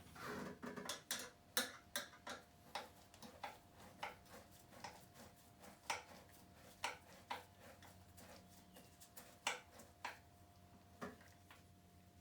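Socket ratchet clicking in short, uneven strokes, about two clicks a second, as the bolts holding a motorcycle fuel tank are done up. A faint steady hum lies underneath.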